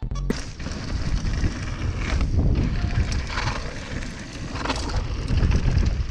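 Mountain bike riding down a loose dirt trail, with heavy wind rumble on the handlebar camera's microphone and the rolling noise of the bike over the ground. It starts suddenly about a third of a second in.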